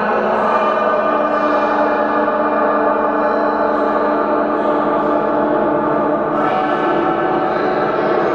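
Experimental drone music: a dense, steady wash of many sustained ringing tones layered over one another, shifting slowly in pitch.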